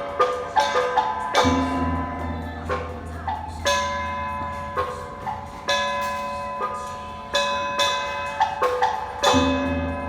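Live Chaozhou opera accompaniment for an iron-stick puppet show: struck metal percussion and wood-block clapper strokes over sustained ringing tones. A deep, long-ringing low stroke comes about a second and a half in and again near the end.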